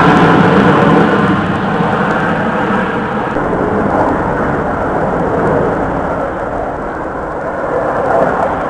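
Roar of Blue Angels jets that have just passed overhead: a rumbling jet noise that slowly fades, then swells again near the end.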